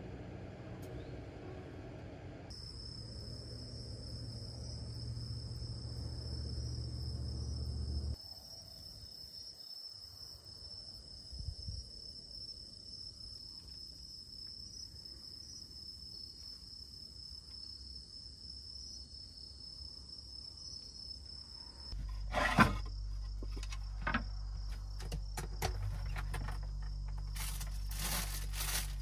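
Insects chirring at night in a steady, continuous high trill. Near the end the chirring gives way to a loud click, then knocks and rustling as an under-counter compartment is opened and things inside are handled.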